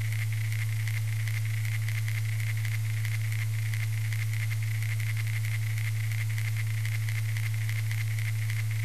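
Vintage film projector sound effect: a steady low hum with a fast, even clatter and crackle running on without change.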